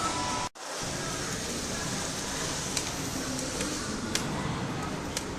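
Steady background noise with a few faint clicks, cut off for a split second about half a second in.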